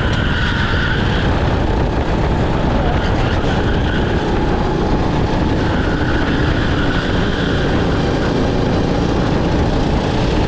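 Racing kart's engine running at speed, heard from on board, with steady wind and track noise over it.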